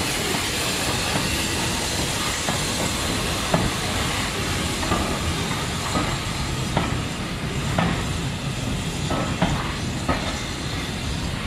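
BR Standard Class 4 2-6-0 steam locomotive 78019 pulling past with steam hissing, followed by its train of vans rolling by, wheels giving occasional clicks and knocks over the rail joints.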